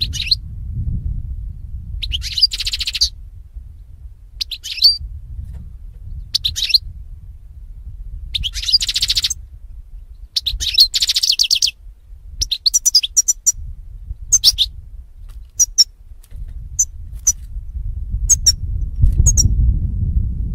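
European goldfinch singing: short bursts of high twittering and chirping phrases every second or two, turning to quick, sharp single calls in the second half, over a low steady rumble.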